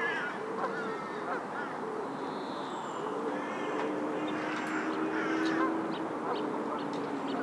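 Mixed waterfowl and other bird calls: geese honking and ducks quacking, with cawing and many quick high chirps from small birds. A low steady hum joins about three seconds in.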